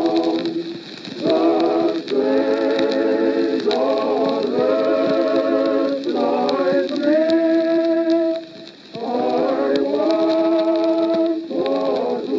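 Background music with singing: long held notes with a wavering vibrato, sung in phrases with short pauses between them.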